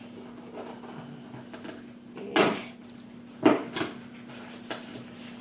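A present being unwrapped: wrapping paper rustling in two loud bursts, about two and three and a half seconds in, with smaller crinkles around them.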